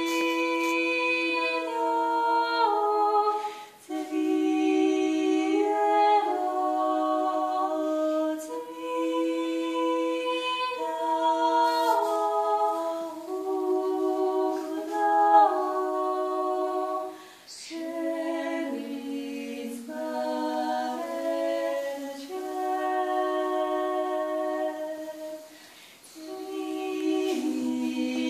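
Georgian church chant (galoba) sung unaccompanied by a small group, women's voices to the fore, in long held notes that step from pitch to pitch. The phrases break off briefly three times for breath.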